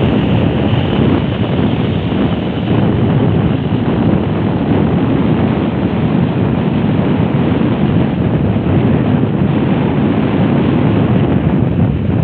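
Wind buffeting the phone's microphone: a loud, steady rushing that covers everything else.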